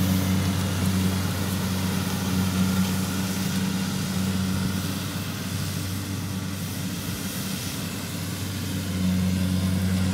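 Rice combine harvester running in the field, its diesel engine and threshing drum giving a steady low drone. The drone eases off for a few seconds and comes back up near the end.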